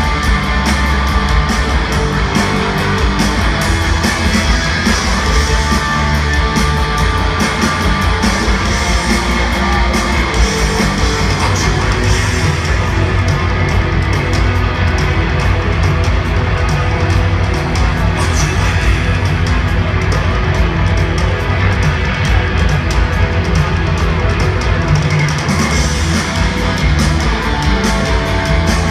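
Live rock band playing loud: distorted electric guitars, bass and drums, picked up from the audience in a large arena.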